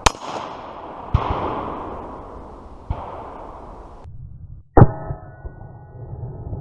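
AR-15 rifle shots, .223 V-Max rounds, each followed by a trailing echo: one at the start, one about a second in, a fainter one near three seconds, and the loudest near five seconds. The last is followed by a ringing of several tones dying away, a steel target ringing from a hit.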